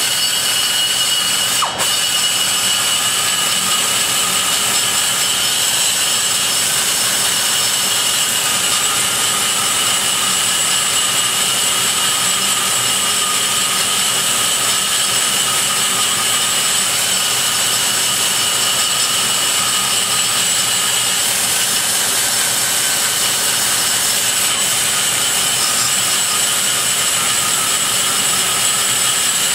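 Die grinder with a rotary burr running at high speed and cutting into a Dart Pro 1 big-block Chevy cylinder head's exhaust port, removing raw material to enlarge the port. A steady high whine over a rasping cut, with one brief dip about two seconds in.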